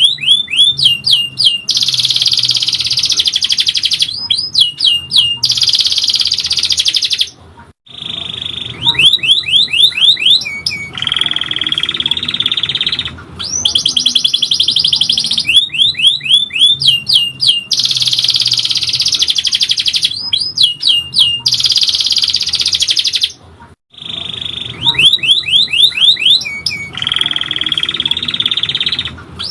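Domestic canary singing a long, loud song of rapid repeated upward whistled sweeps alternating with sustained rolling trills, pausing briefly twice; the same passage repeats after about 16 seconds, as in a looped recording.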